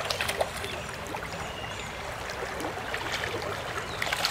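Hooked rainbow trout thrashing at the surface of a shallow stream, a few sharp splashes over the steady rush of the flowing water.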